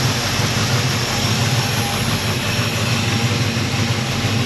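1964 Chevelle's small-block Chevy V8 running steadily at idle with no belt squeal; the new dual V-belt drive is taken to have cured the belt slip.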